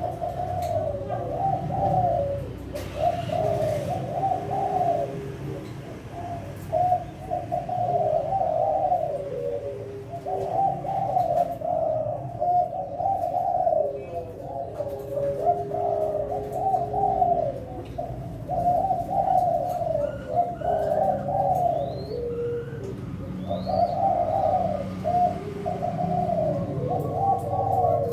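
Several caged doves cooing over one another, led by Kelantan-strain spotted doves (tekukur Kelantan) repeating their rhythmic cooing phrases with hardly a pause, with a lower, drawn-out coo from another dove at times. A few faint higher chirps come in past the middle.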